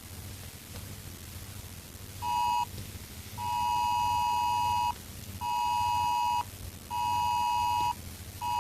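Emergency broadcast attention tone: a steady electronic two-note beep, high-pitched, starting about two seconds in with one short beep, then longer beeps of about a second each with short gaps between them. A faint low hum sits underneath.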